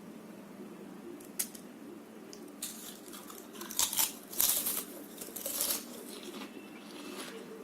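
Crispy chips being eaten close to the microphone: a sharp click, then a run of crunching and crinkling bites, loudest about halfway through.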